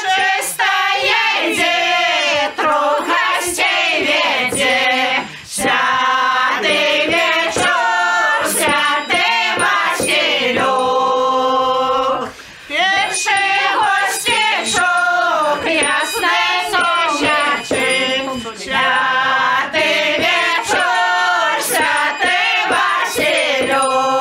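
Women's folk group singing a Belarusian shchadrets carol in long phrases, breaking briefly for breath about every six seconds. Sharp knocks sound along with the singing.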